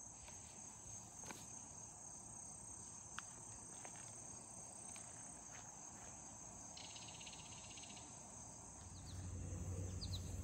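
Faint, steady high-pitched drone of insects in a summer chorus, with a few light clicks. Near the end a low rumble comes in.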